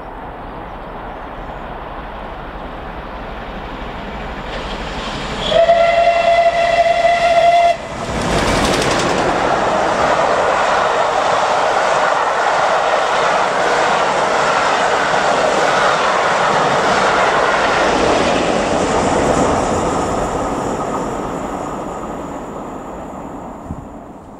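Steam locomotive approaching without stopping. It sounds its whistle, one loud tone lasting about two seconds, then passes close by with a sudden burst of noise, followed by the steady rush and clatter of its coaches. The sound fades away over the last few seconds.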